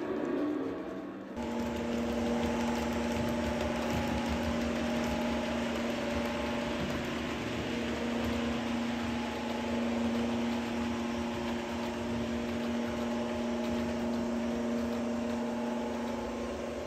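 Model railway locomotive running, giving a steady engine-like drone with a low hum underneath; it comes in abruptly about a second in and then holds level.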